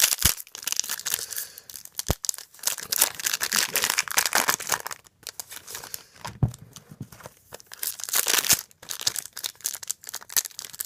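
Trading cards and foil pack wrappers being handled and sorted: irregular crinkling and rustling, with a sharp click about two seconds in.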